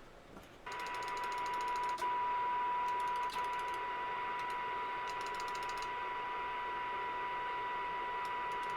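Steady single-pitch test tone from a signal generator with a band of hiss behind it, switching on suddenly under a second in and then holding unchanged. It is used to test the 10-meter radio's AM transmission into a dummy load.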